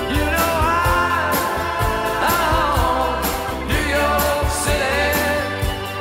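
Music: a mid-tempo song with a voice singing held, gliding notes over a steady drum beat and bass.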